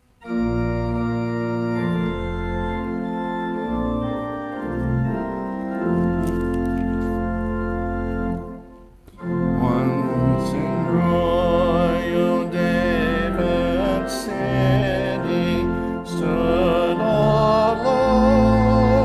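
Church organ playing a hymn's introduction in steady sustained chords, then a brief break about nine seconds in, after which voices join, singing the hymn to the organ accompaniment.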